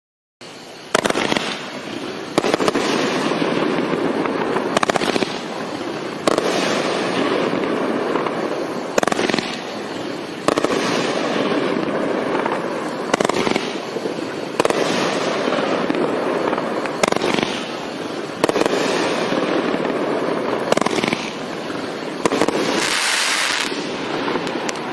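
Miracle Fireworks Rockin Rushmore 500-gram cake firing shot after shot, starting about half a second in. A sharp report comes every one and a half to two and a half seconds, about a dozen in all, each followed by a sustained hiss as its long-lasting flower-crown burst spreads.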